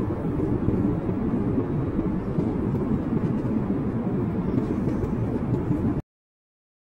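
Steady low rumble of jet airliner cabin noise, the engines and rushing air heard from a passenger seat. It cuts off abruptly about six seconds in.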